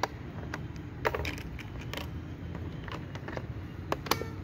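Sharp plastic clicks and taps from an HP laptop's screen lid and bezel being pressed and handled. There are about half a dozen, two of them close together near the end, over a steady low background rumble.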